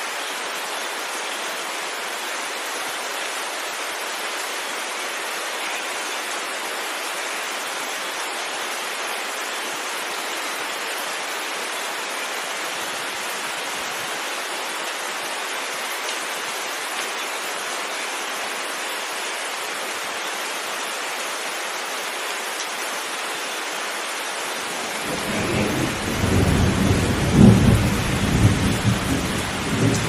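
Heavy rain falling steadily. Near the end a low rumble of thunder swells up, then dies away.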